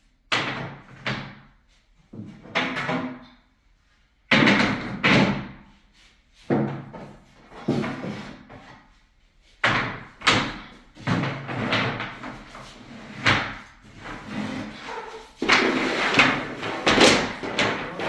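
Wooden bed-frame sections knocking and banging as a headboard section is worked loose from its pins: a run of sharp knocks and bangs, roughly one a second, each ringing out briefly.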